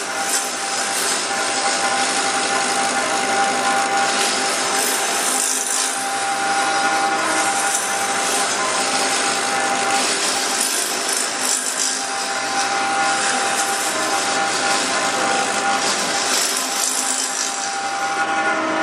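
Turning tool cutting into a bowl blank spinning on a wood lathe, hollowing out the inside of the bowl: a steady hiss of wood being sheared away as shavings fly off the tool.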